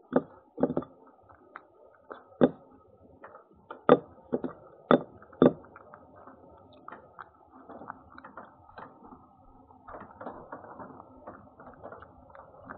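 A cat moving about right against the microphone. A run of sharp knocks and clicks over the first six seconds is followed by softer scratchy rustling.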